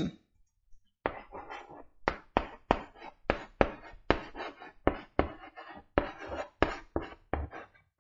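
Chalk writing on a blackboard: a run of sharp taps and scratchy strokes, about three a second, starting about a second in.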